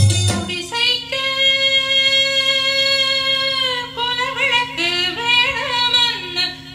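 A Tamil song played back from a cassette on a Technics M215 tape deck. A female voice holds one long, steady note, then sings a winding, ornamented melodic line about four seconds in, over a steady low drone.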